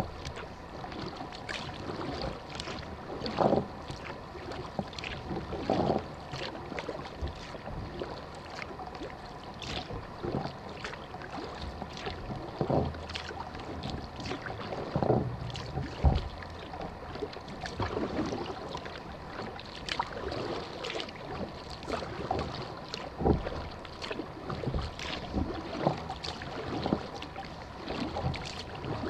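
Kayak paddling on calm water: the paddle blades dip and pull, with splashes and drips about every one to two seconds over a steady faint hiss.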